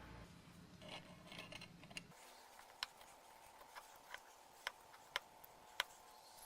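Small hard parts being handled during a throttle body restoration: a brief rubbing or scraping, then a series of about seven sharp, irregular clicks over a faint steady hum.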